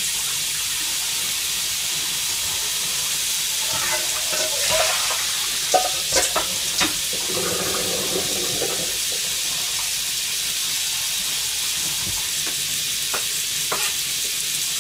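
Sliced beef frying in sesame oil in a pan over very low heat: a steady, gentle sizzle, with a few light clicks about four to seven seconds in.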